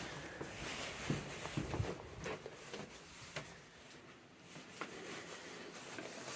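Faint handling noise: scattered light clicks and rustles, several in the first three seconds and one more a little before five seconds in.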